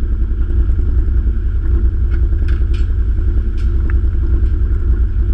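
An engine running steadily, a loud low rumble with a fast even beat, with a few faint clicks near the middle.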